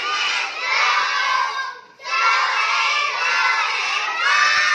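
A class of young children shouting together in two long phrases, with a short break about two seconds in.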